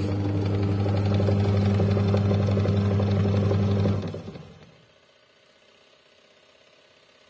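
Washing machine's newly fitted wash motor running the wash drum by belt, with a steady electric hum and a rattle. About four seconds in it cuts out and coasts to a stop: the wash timer's pause before the motor turns the other way.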